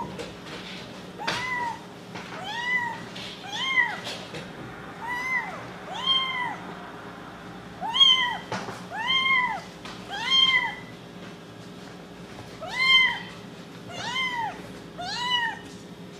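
A black-and-white kitten meowing over and over, about a dozen high-pitched meows each rising and falling, roughly one a second with a short pause about two-thirds of the way through. A faint steady hum lies underneath.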